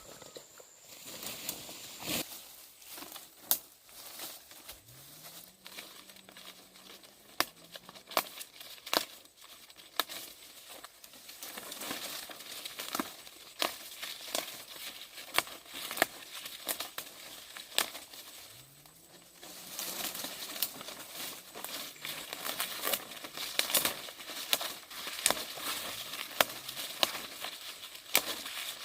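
Continuous rustling and crinkling with many small, crisp snaps, busier in two stretches with a quieter spell between them.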